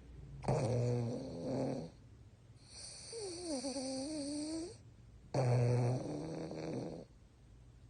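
French Bulldog snoring: two loud rasping snores about five seconds apart, with a softer, wavering whine in between that dips in pitch and rises again.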